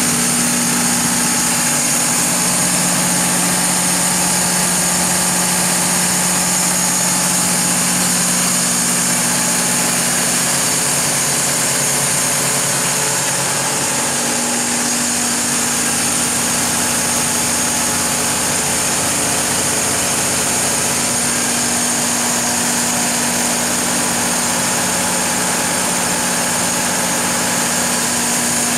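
Mitsubishi S12A2 V12 turbocharged diesel engine of a Kohler 760 kW generator set running steadily: a constant hum with a high hiss over it.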